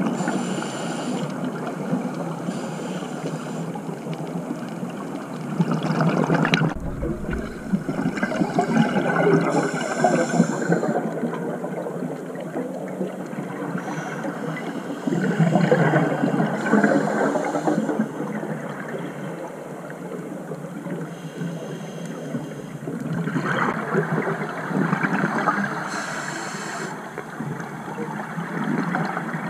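Scuba diver breathing through a regulator, heard underwater: a hiss on each breath in and gurgling bubbles on each breath out, coming in waves every few seconds.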